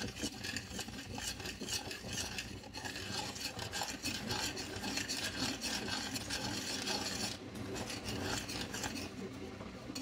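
Metal spoon stirring thick oatmeal with banana in a stainless steel saucepan, a continuous rapid scraping against the pot.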